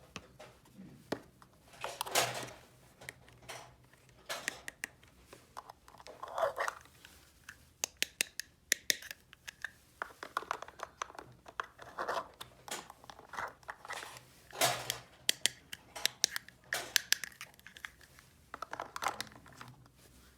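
Small plastic toy pieces being handled: many sharp clicks and taps, with several short rustling, tearing sounds of packaging.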